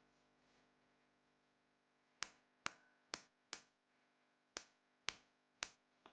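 Seven sharp, short plastic clicks about half a second apart, starting about two seconds in, from handling the Mini Cat64 mechanical keyboard: keys struck one at a time or parts snapped into place.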